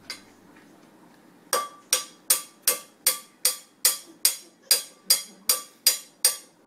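A toddler banging a small saucepan with a utensil: one strike, a pause of about a second and a half, then a steady run of strikes about two and a half a second, each with a short metallic ring.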